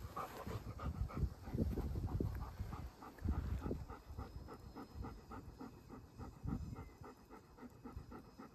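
A German shepherd panting steadily at about three breaths a second, close by. Low rumbles come and go underneath.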